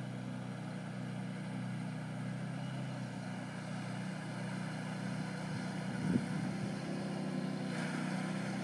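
Six-wheel ATV engine running steadily at a distance as the vehicle drives through water, a low even hum, with one brief knock about six seconds in.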